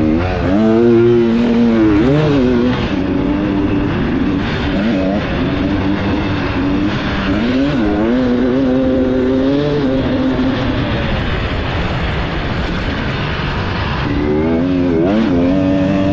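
Beta off-road motorcycle engine, heard from on board as it is ridden: the pitch climbs and drops several times as the throttle is opened and closed, with the biggest rises about a second in, around eight seconds in and near the end.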